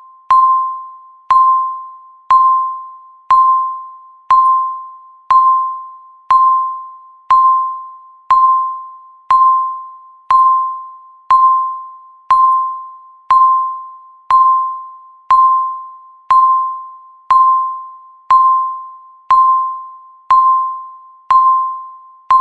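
Countdown timer beeping once a second: a short electronic beep of one pitch, each starting sharply and dying away before the next.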